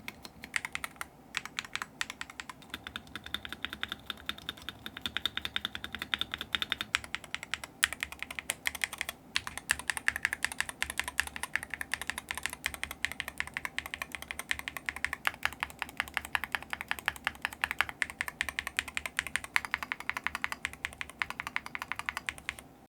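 Gravastar Mercury V75 PRO magnetic-switch keyboard with Gateron Jade gaming switches being typed on fast and continuously: a dense, steady clatter of keystrokes with a brief pause about nine seconds in.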